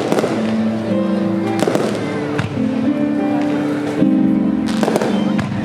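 Fireworks shells bursting in three clusters of sharp cracks, near the start, a little under two seconds in and near the end, over music with long held notes.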